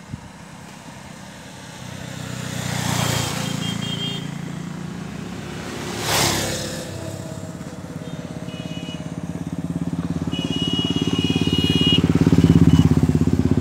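Motorcycle engine running, getting steadily louder over the last few seconds, with two brief rushing swells about three and six seconds in.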